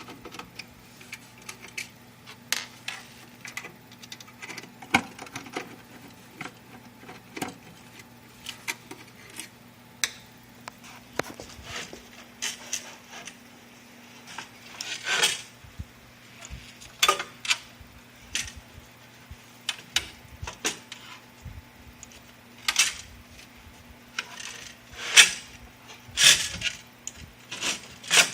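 Irregular clicks, knocks and metallic clinks of hand tools and small hardware being handled during work on a laser machine's power supply, over a steady low hum.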